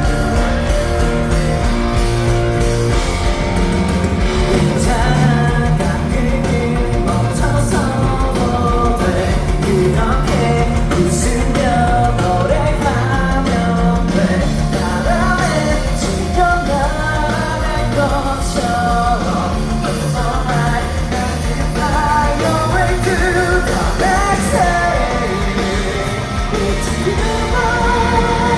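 Live rock band playing at full volume, electric guitars and drums under a wavering melodic line, with singing.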